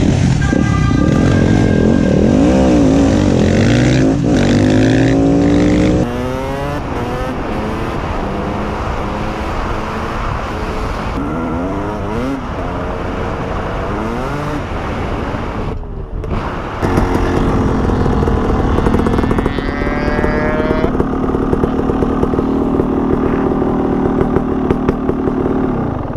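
Motorcycle engines heard from the rider's helmet camera, revving up and down through the gears with the pitch rising and falling. About a third of the way in the sound changes abruptly to a dirt bike doing the same on a gravel road. Later the engine settles into a steadier, even note.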